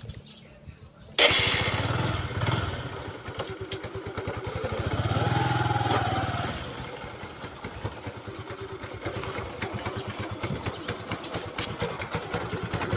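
Motorcycle engine running while being ridden, with noisy road and wind sound on a phone microphone. It comes in suddenly about a second in, and its pitch rises and falls once near the middle.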